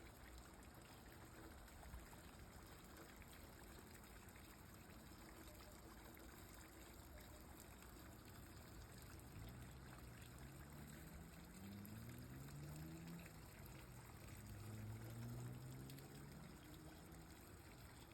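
Rain falling, a faint steady hiss. From about halfway through, a faint low hum rises and falls under it.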